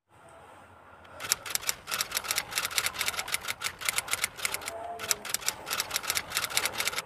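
Typewriter-style typing sound effect: rapid key clicks, about five or six a second, starting about a second in, with a brief break a little past the middle.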